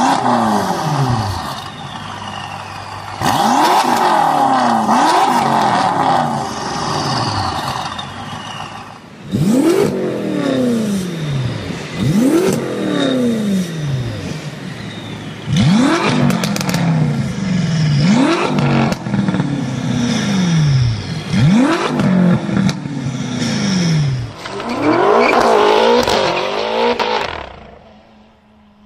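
BMW M5 F10's twin-turbo V8 revved again and again through an iPE aftermarket exhaust: each blip rises sharply, and the pitch then falls back toward idle. A couple of longer revs are held high for a few seconds.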